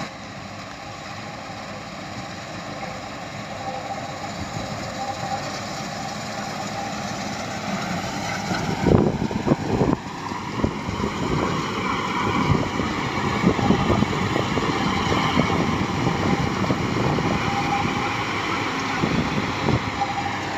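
Combine harvester's engine and machinery running steadily, with a few loud knocks about nine seconds in, after which the engine note rises.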